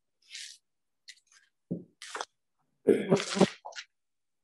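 A person's breath and short non-word vocal noises, such as a cough or clearing of the throat, the loudest about three seconds in.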